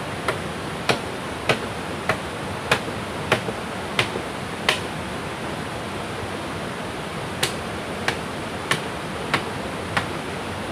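Hand-held blade chopping into wood: a steady run of sharp chops about two-thirds of a second apart, stopping for about three seconds midway and then resuming. A steady rush of river water runs underneath.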